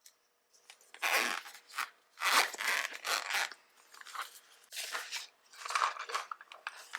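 Irregular crunching noises, one every half second to a second, each lasting a fraction of a second.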